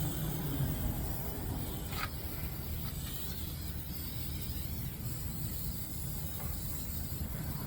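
Aerosol can of rust protector spraying inside a truck's metal battery box: a steady hiss over a low rumble.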